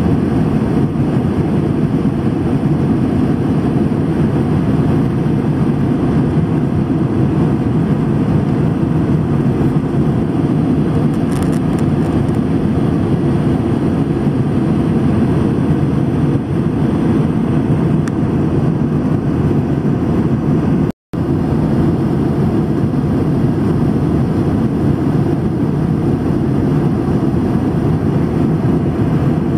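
Steady drone of airplane cabin noise, engines and rushing air heard from inside the cabin, dropping out for a moment about two-thirds of the way through.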